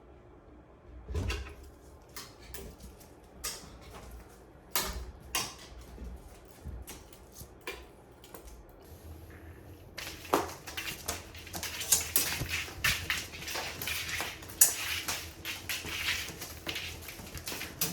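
Cats playing with a ribbon toy: scattered light knocks and rustles, becoming a busy, continuous scuffling and scratching about ten seconds in.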